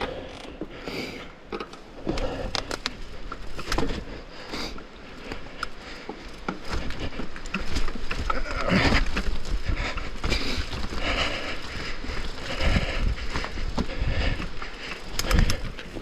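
Downhill mountain bike coasting over rough trail: the freehub ratchets, with chain slap, rattles and irregular knocks as the bike hits roots and rocks.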